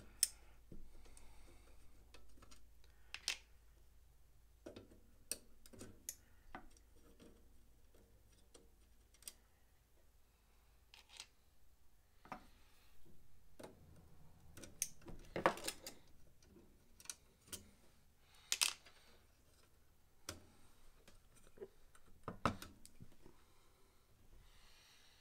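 Scattered clicks and light knocks from hand tools and small metal hardware: pliers working threaded standoffs loose and tools set down on the bench. The sharpest clicks come about halfway through and again later on.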